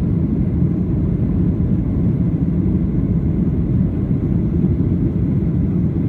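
Steady low rumble of an airliner's engines and airflow, heard inside the passenger cabin.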